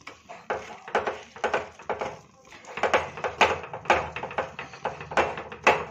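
Metal spatula scraping and knocking against a steel pan as lumps of soft sweets are pressed and broken up: an irregular run of scrapes and taps, with a short pause about two seconds in.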